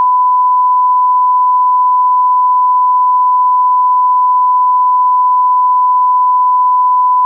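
A single loud, steady electronic tone at one unchanging pitch, broadcast over AM radio and unbroken throughout. It is part of WLS's botched Emergency Alert System test.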